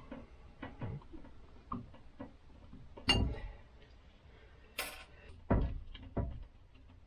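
Scattered light metallic clicks and knocks of hand-tool work on a Tuff Torq K46 lawn-tractor transaxle: a screwdriver working at the input pulley's hub, then the steel belt pulley and the cooling fan lifted off the input shaft, with a sharp click about five seconds in.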